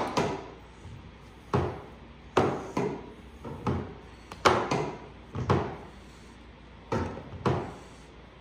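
About ten irregular sharp knocks and thuds as plastic water tubing and fittings are handled and worked onto a pump fitting on a wooden table.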